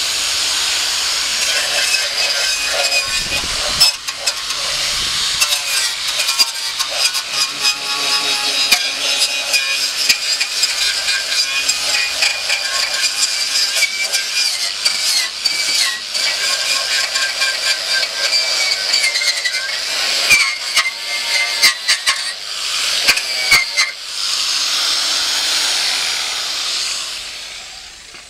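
A power tool running with a steady high whine, broken by many sharp clicks and scrapes as it works, then dying away near the end.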